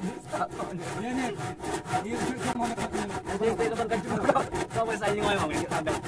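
Handsaw cutting through a wooden plank in steady back-and-forth strokes, about two strokes a second.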